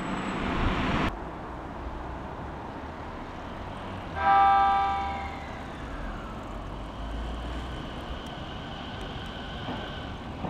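A JR 209 series electric train sounds its horn once, about four seconds in: a loud chord of several tones that fades away over about two seconds. Before that, a rushing noise cuts off abruptly about a second in.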